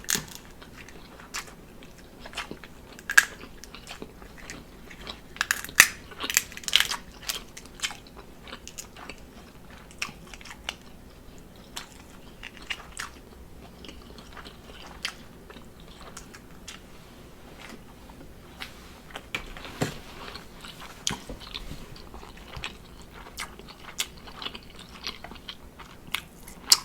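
Close-miked eating: a person chewing and biting seafood, with irregular wet smacks and sharp clicks, busiest about five to seven seconds in.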